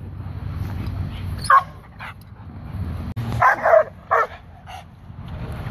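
A pit bull-type dog barking: one bark about a second and a half in, then three sharp barks in quick succession a couple of seconds later.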